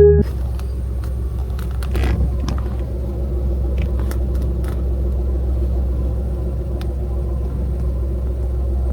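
Steady low rumble of a car, heard from inside, with a few faint ticks over it.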